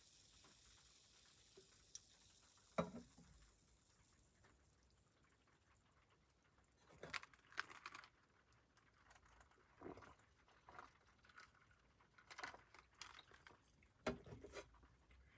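Faint sizzling of food frying that dies away over the first few seconds, then scattered small clicks, knocks and rustles in short clusters, like things being handled and set down.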